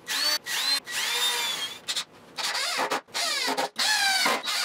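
Cordless driver driving screws into a plywood cabinet in a series of short motor whines, about six in all, each stopping as a screw is run home.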